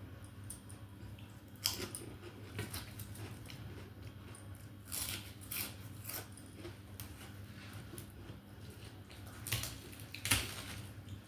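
A person chewing and biting into food, with a few sharp crunches scattered through, the loudest near the end. A steady low hum runs underneath.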